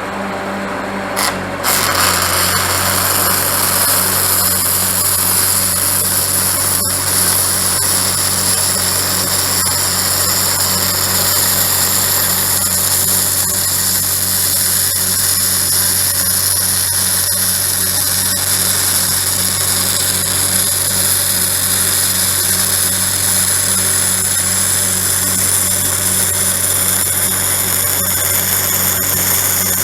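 Stick welding with the arc struck about two seconds in and held steadily, giving a continuous loud hiss. Under it, the engine of an engine-driven welder (Lincoln SA-200) runs with a pulsing beat and pulls down under the welding load as the arc starts.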